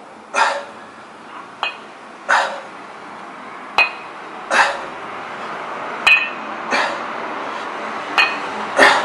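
A man's sharp exhalations about every two seconds, in rhythm with kettlebell reps, alternating with light metallic clinks from the cast-iron kettlebell and its handle.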